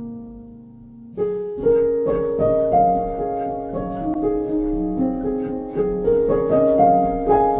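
Background instrumental music with a piano melody. It drops to a single soft note at first, then picks up again about a second in with a run of ringing notes.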